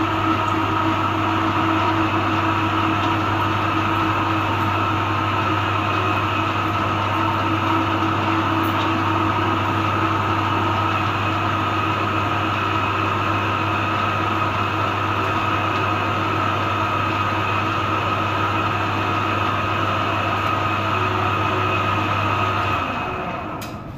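Electric meat grinder running steadily as mutton mince is fed through it, a low motor hum with a higher whine over it. It is switched off near the end.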